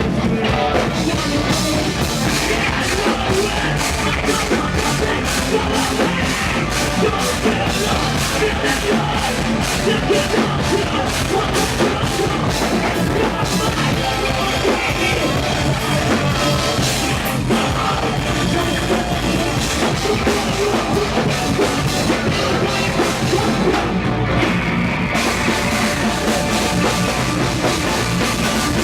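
Rock band playing loud and fast, with a drum kit keeping a driving beat throughout.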